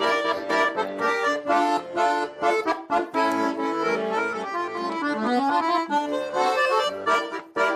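Instrumental break of a Russian pop-folk song, accordion-led over a steady beat, with a run of rising notes near the middle.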